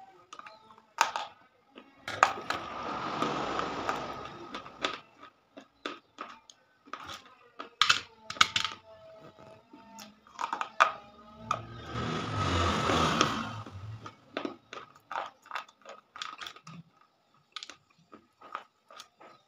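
Sticks of chalk being bitten and chewed close to the microphone: many sharp, irregular crunches and clicks, with two longer, louder stretches of noisy crunching of a few seconds each, about two and twelve seconds in.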